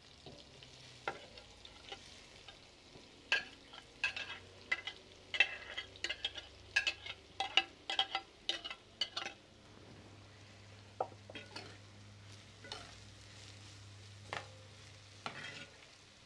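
Onions frying in hot oil in a clay cazuela, a faint steady sizzle. Over it comes a quick run of knocks and scrapes from about 3 to 9 seconds in, as a plastic spatula scrapes chopped green beans out of a ceramic bowl into the pot. A few more knocks follow near the end as the beans are stirred in.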